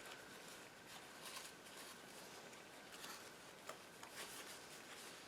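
Near silence with faint handling noises of work on a bird skin: soft rustles and a few small clicks.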